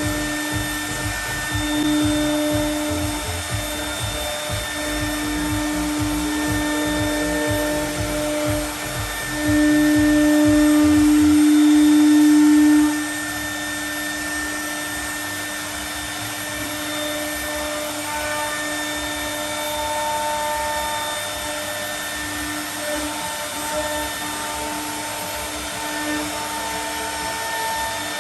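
CNC milling router spindle whining at a steady high pitch as it cuts aluminium composite panel, louder for a few seconds about ten seconds in. A low rumble underneath stops about eleven seconds in.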